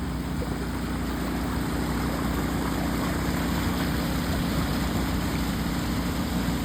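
Floodwater rushing steadily, a low rumble that grows slightly louder a couple of seconds in.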